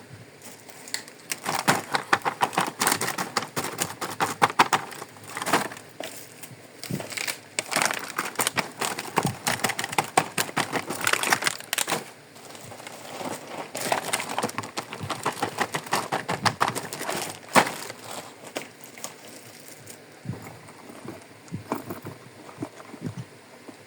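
Pieces of a plastic toy kitchen set and their plastic packaging being handled: crinkling and quick runs of small plastic clicks in spells of a few seconds, thinning to a few scattered clicks near the end.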